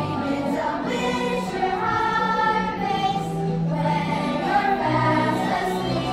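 A children's stage cast singing together as a choir over instrumental accompaniment, with sustained, gliding notes.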